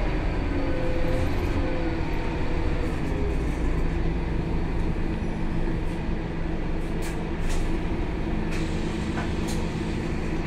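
Inside a Scania K280 city bus: the rear-mounted diesel engine runs with a low, steady rumble through the cabin. A few light rattles come near the end.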